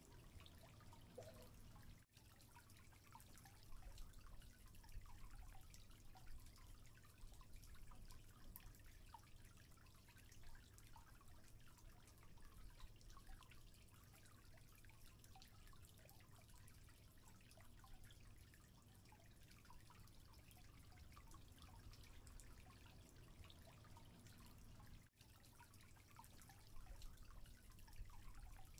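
Near silence with faint, scattered drips of aquarium water.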